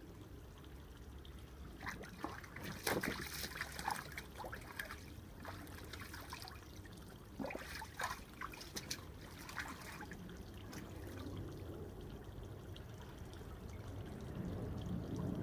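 A dog paddling in a plastic paddling pool, pawing and splashing the water in irregular spells about two seconds in and again around eight seconds in.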